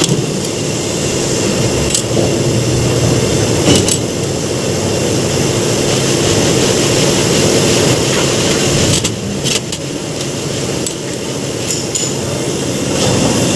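Steady mechanical hum of workshop machinery, with a few sharp metallic clicks and clinks as a brake caliper bracket and its metal pad clips are handled on a steel workbench.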